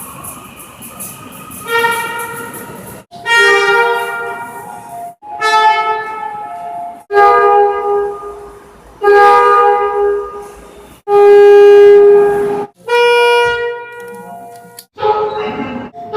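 Seoul Subway Line 7 train horns sounding in a quick succession of separate blasts, about eight in all, each a steady chord of several tones lasting one to two seconds and cut off sharply before the next. The loudest blast comes about eleven seconds in.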